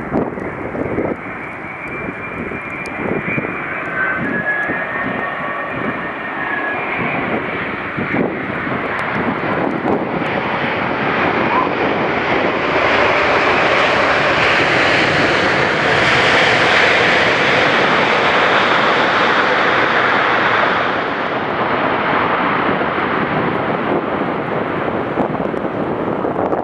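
Airbus A330-900neo's Rolls-Royce Trent 7000 jet engines during its landing pass. A continuous rush with a thin high whine in the first few seconds swells to its loudest about halfway through, then eases away.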